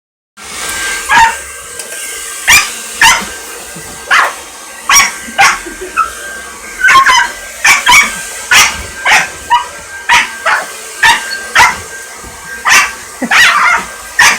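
A small dog barking and yipping at a hair dryer, sharp high-pitched barks about twice a second, over the steady drone of the running hair dryer.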